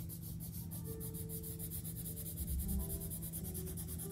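Pencil scratching on sketchbook paper in quick, repeated strokes as the drawing is shaded.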